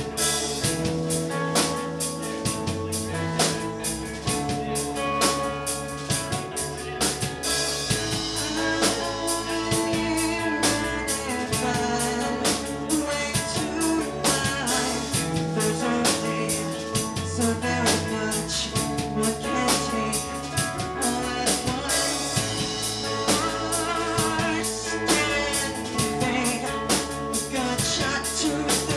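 A rock band playing live: electric guitars, bass and a drum kit keeping a steady beat, with a woman singing over them.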